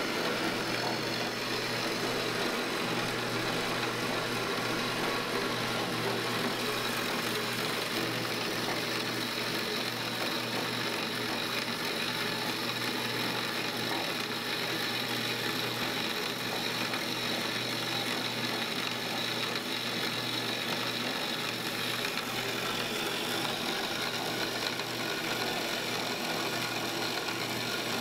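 Wilton 3410 7-inch horizontal metal bandsaw running steadily, its blade cutting through steel angle iron in a wet cut with coolant, over a constant motor hum.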